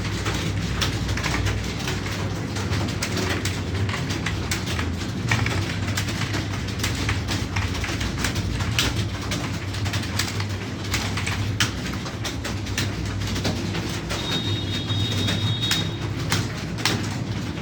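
Rapid, irregular clicking of computer keyboard keys during a timed typing test, over a steady low hum.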